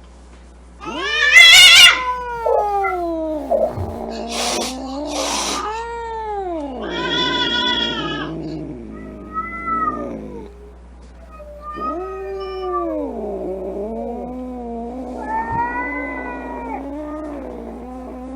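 Angry cats caterwauling: long, wavering yowls that rise and fall in pitch. The loudest is a shrill, trembling screech about a second in, and two short hisses come around four and five seconds in.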